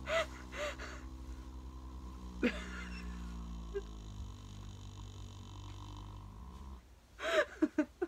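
A young stallion lying in straw snoring: a long, low, steady droning groan that breaks off about seven seconds in. A few short sharp breath-like sounds come near the start, about two and a half seconds in, and in a quick cluster near the end.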